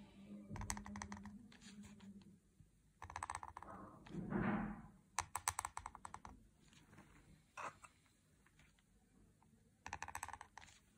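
Cut-nib calligraphy pen (qalam) scratching on paper as ink strokes are drawn: about five short bursts of rapid clicking ticks, with a softer, smoother swell of noise a little before the middle.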